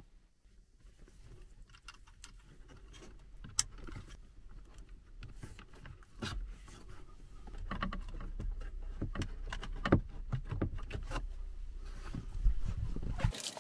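Hands rustling and tugging a cloth-wrapped wiring harness and plastic plug connectors inside an open dashboard cavity: irregular scraping and clicking, busier in the second half, with a few sharp clicks about ten seconds in and near the end.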